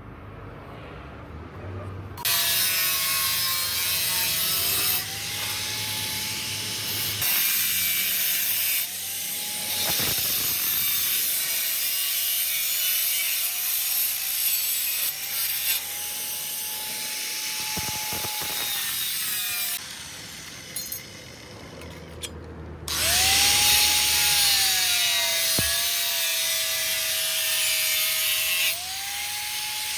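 Angle grinder with a thin cut-off disc cutting sheet steel: a steady motor whine under a loud hiss of the disc biting the metal, the pitch dropping under load and rising again as the cut eases. It starts about two seconds in, stops briefly around twenty seconds in, and starts again a few seconds later.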